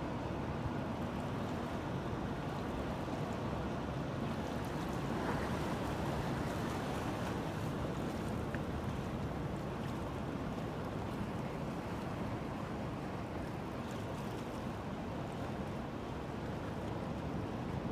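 Steady rushing of wind and water, waves washing, with no distinct engine note or single event standing out.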